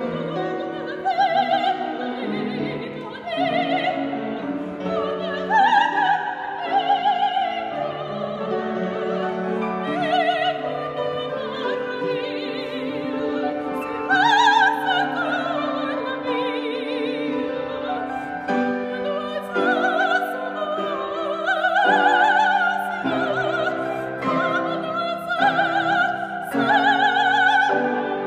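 Operatic soprano singing an aria with wide vibrato and long held notes, accompanied by piano.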